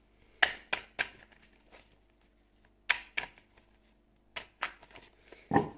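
A deck of tarot cards being shuffled by hand, the cards slapping together in short clusters of sharp snaps with pauses between them.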